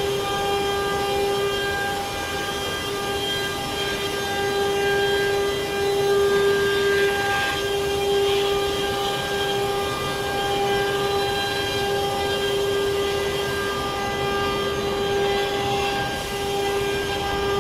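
CNC router spindle running with a steady high whine that holds one pitch throughout, over the constant noise of the machine cutting wood.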